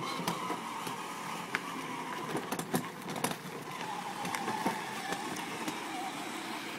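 Battery-powered ride-on toy police car driving: its electric motors and gearboxes whine steadily while the hard plastic wheels crackle and click over gravel and cracked asphalt.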